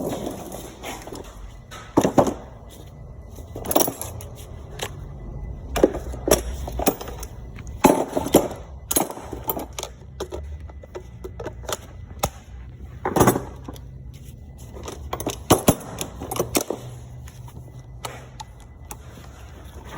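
Sharp metallic knocks and clanks of tools on a car's wheel and brake parts, about ten at irregular intervals, over a low steady hum.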